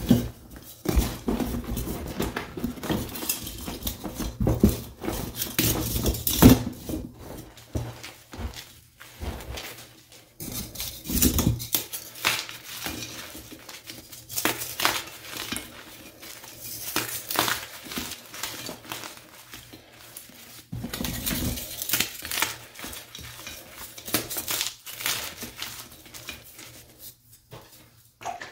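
Dyed gym chalk blocks crushed in the hands, crunching and crumbling into powder in repeated bursts, with brief pauses about ten and twenty seconds in.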